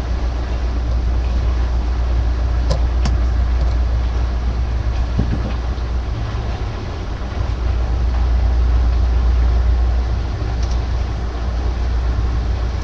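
Steady low rumble of heavy machinery running, with a few sharp clicks about three seconds in and again near the end.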